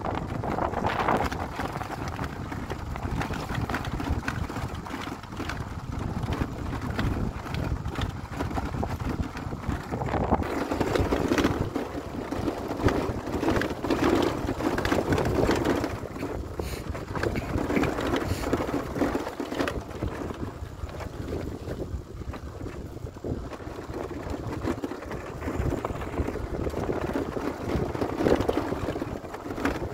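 Wind buffeting the microphone: a steady low rumble that swells and eases unevenly.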